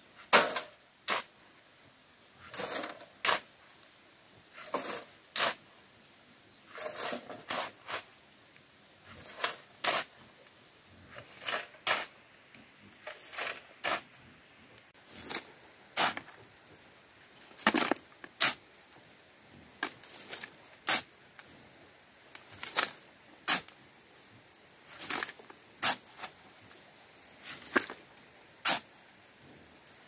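Repeated scraping strokes, coming in pairs about every two seconds in a steady working rhythm.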